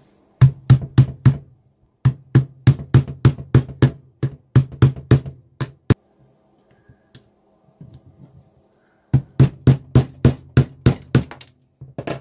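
Ratcheting screwdriver clicking in quick, even runs of about four sharp clicks a second, in three spells with pauses between. It is backing out the screws of a faulty electromagnetic solenoid on an Ohlins EC shock.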